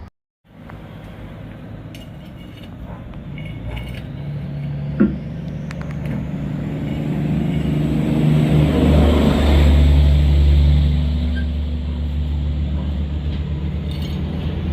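Heavy truck's diesel engine running as the rig drives off, growing louder to about two-thirds of the way through and then easing slightly, with a single click about five seconds in.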